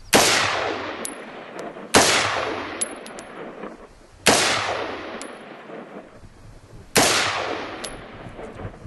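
Four single gunshots fired a couple of seconds apart, each sharp crack trailing off in a long echoing decay, with faint light clinks after some shots.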